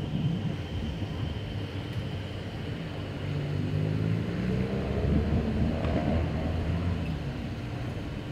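Steady low outdoor rumble, with wind on the microphone, and faint distant voices rising and falling through the middle.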